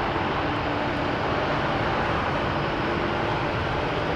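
Jet airliner engines running at low power while the aircraft taxi: a steady rushing noise with a faint, even whine.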